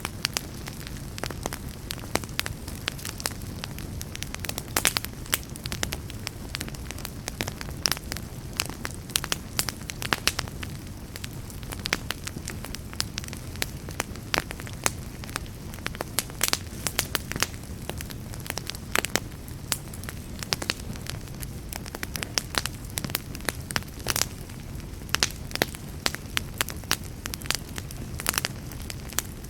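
Fire burning: a steady low rumble with frequent sharp, irregular crackles and pops.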